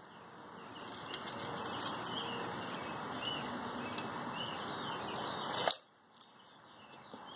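Outdoor background with small birds chirping every second or so over a steady hiss. Near the end there is a single sharp click, after which the background hiss drops away suddenly.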